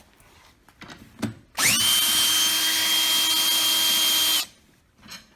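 Cordless drill-driver backing out a screw: the motor spins up with a quickly rising whine, runs steadily for nearly three seconds, then stops abruptly. A couple of small clicks come just before it.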